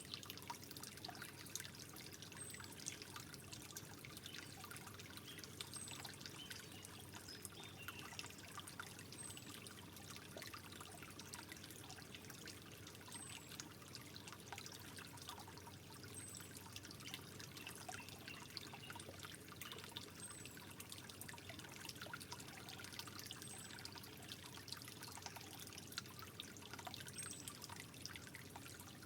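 Water trickling softly, a steady faint burble with many small drips and splashes. A faint high chirp recurs about every three seconds.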